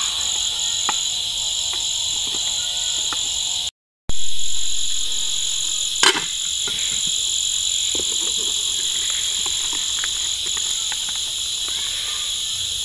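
Steady chorus of insects, a constant high-pitched buzz with a faint pulsing above it. The sound cuts out briefly about four seconds in and returns with a short loud burst. A sharp metallic clink about six seconds in, as the cooking pot's lid is lifted.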